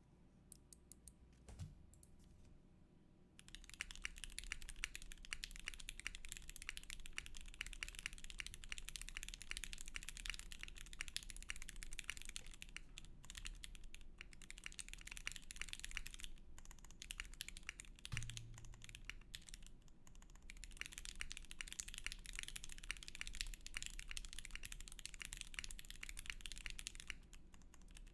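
Typing on a custom mechanical keyboard with a tray-mounted aluminum case and plate, lubed Gateron Red Ink linear switches and ABS doubleshot keycaps. A few lone key presses come first, then fast continuous typing starts about three seconds in, broken by a few brief pauses.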